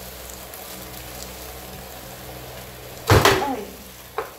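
Spaghetti and meatballs in sauce sizzling low in a frying pan as a wooden spatula stirs them. About three seconds in there is one loud knock with a short falling ring, followed by a couple of lighter clicks near the end.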